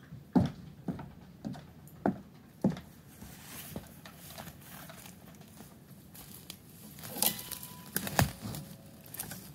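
Footsteps approaching, about two steps a second over the first few seconds, followed near the end by crackling and brushing against dry twigs close to the microphone.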